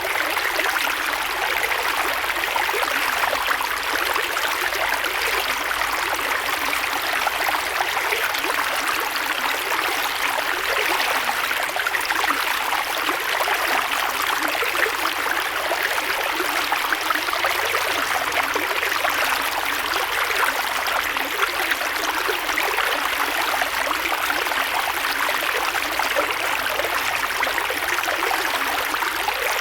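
Creek water flowing and splashing over rocks: a steady babbling rush with fine trickling detail.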